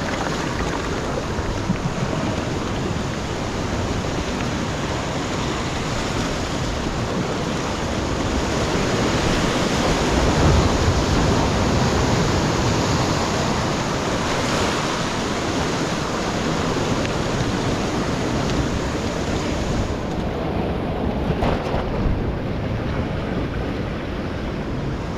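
Ocean surf washing against shoreline rocks: a steady rushing wash that swells to its loudest about ten seconds in, with wind buffeting the microphone.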